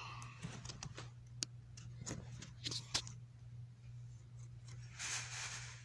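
Glitter slime being pressed and worked by fingers: scattered soft clicks and pops, with a brief rustle near the end.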